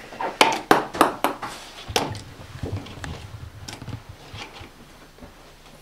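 Plastic beer pong cups clicking and knocking against each other and on the table as they are rearranged. There is a quick run of sharp clicks in the first two seconds, then a few fainter ones.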